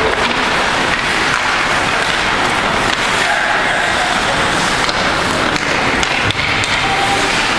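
Ice hockey rink sounds: skates scraping on the ice over a steady noisy background, with a few sharp stick or puck clacks.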